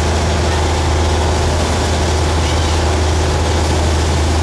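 A boat's motor running at a steady speed: a loud, constant low drone over the rushing of water churned up in the wake.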